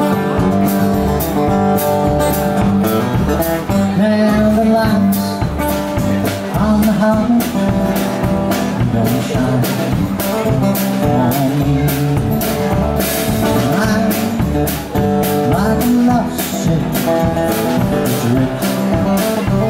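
Live country band playing, with guitar over bass and a steady drum beat.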